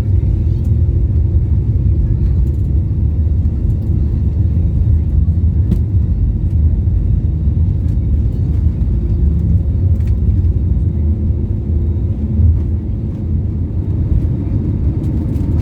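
Jet airliner during takeoff: a steady deep rumble of engines and rushing air, with a faint steady hum above it.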